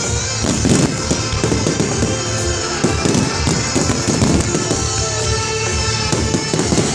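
Fireworks finale: a dense barrage of aerial shells bursting, many bangs overlapping several times a second, with music playing along.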